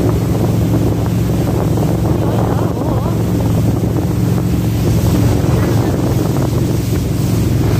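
Jet boat's engine running steadily under way, with wind buffeting the microphone.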